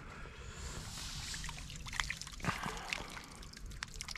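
Water trickling, dripping and splashing lightly around a freshly caught bream being brought in, with scattered small splashes and one sharper splash about two and a half seconds in.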